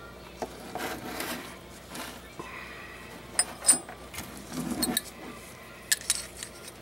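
Steel parts of a disassembled .22 bolt-action rifle handled on a wooden table: scattered clicks and clinks as the bolt body and receiver are picked up and knocked together, with rubbing noise between. The sharpest clicks come about halfway through and again near the end.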